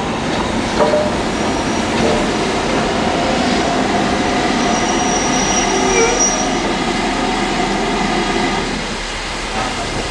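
LMS Black Five steam locomotive 5305 moving slowly through the station with a steady rail rumble and a faint high wheel squeal about halfway through. The sound eases a little near the end.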